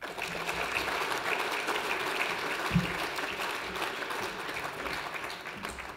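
Audience applauding steadily. One short low thump comes a little under three seconds in.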